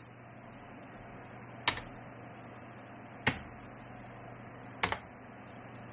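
Three keystrokes on a computer keyboard, about a second and a half apart, the last a quick double click, quitting a program with Esc and a confirming key. Under them runs a steady low hum and hiss.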